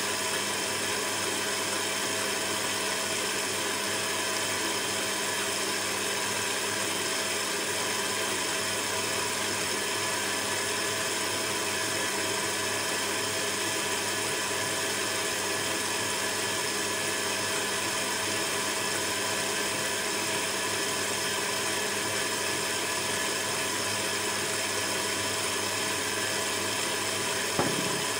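Electric stand mixer running steadily at constant speed, its beater churning cake batter in a stainless steel bowl. A single short knock near the end.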